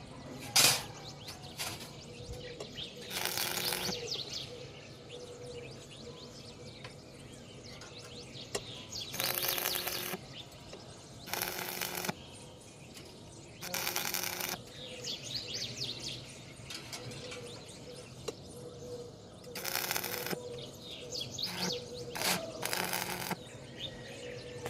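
Arc welder laying short tack welds: about six separate bursts of crackling hiss, each under a second long, with a sharp click just under a second in. Birds chirp faintly between the bursts.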